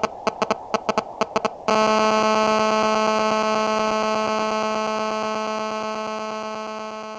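A quick, uneven run of sharp electronic clicks, then, under two seconds in, a sudden long buzzing tone with many overtones that slowly fades away.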